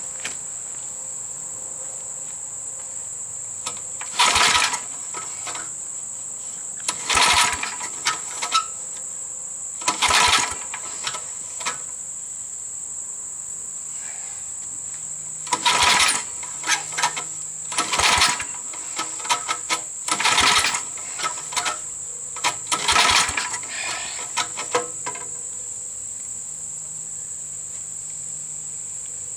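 Tecumseh V60 engine on an old Snapper riding mower cranked in about seven short bursts, each under a second, without catching: it has spark but is not getting fuel. Crickets chirp steadily throughout.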